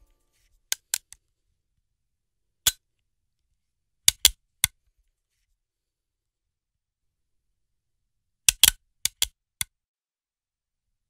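About a dozen sharp, dry clicks in irregular clusters (three about a second in, one near three seconds, three around four seconds, five around nine seconds), with dead silence between them.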